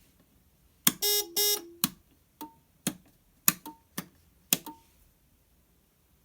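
Everspring HA-28 alarm control panel: a sharp click and two short buzzy beeps about a second in, then a run of about eight sharp clicks over the next three seconds, several of them followed by a brief high beep.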